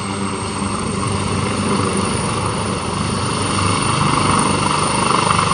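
Helicopter running at high power on the ground: steady turbine whine over rotor noise, growing louder about four seconds in as it starts to lift off.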